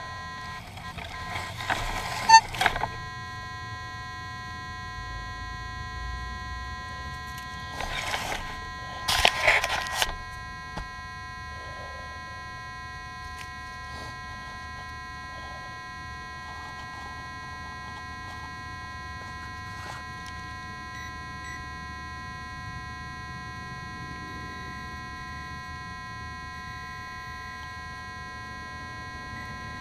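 Shovel cutting and levering a plug of turf and soil out of the ground: two short spells of scraping and crunching, about two seconds in and again around eight to ten seconds in. A steady electronic buzz of several held tones runs under it throughout.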